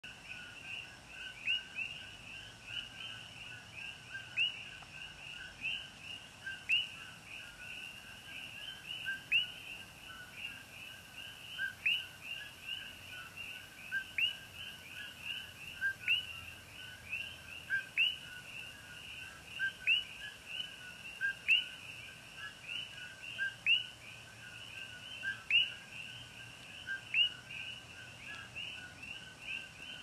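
Chorus of many coqui frogs calling their two-note "ko-KEE", a short low note followed by a rising whistle. One nearer frog calls louder about every two seconds over the dense chorus.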